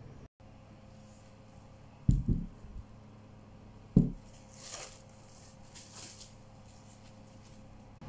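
Two knocks of a bowl set down on a table, about two and four seconds in, then a soft crinkling rustle of plastic cling film being peeled off the bowl of risen dough.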